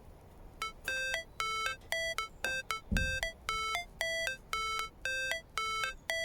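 Background music: a synth riff of short beeping notes, about three a second, stepping between a few pitches, with a single low thump about three seconds in.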